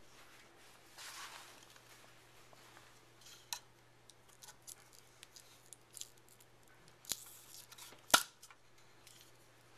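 A metal spatula scraping and prying at a 3D-printed plastic bearing on a printer's build platform: scattered clicks and scrapes, with the loudest sharp click about eight seconds in. A faint steady hum runs underneath.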